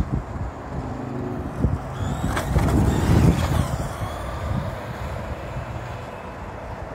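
A road vehicle passing, swelling to its loudest about two and a half to three and a half seconds in, with a sharp click near the start of the peak.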